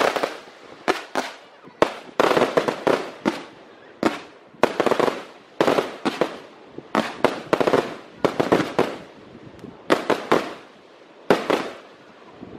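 Aerial fireworks display: a rapid series of shell bursts, bang after bang with crackling in between, several a second at the busiest, thinning out near the end.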